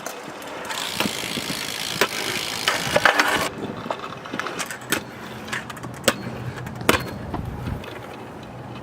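Riding wheels rolling over concrete, with several sharp clacks of impacts. The rolling noise is loudest in the first few seconds, and a low steady hum comes in near the end.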